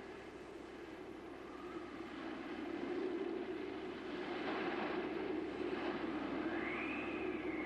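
Wind sound effect blowing steadily, swelling in gusts, with a whistling tone that rises and then falls near the end.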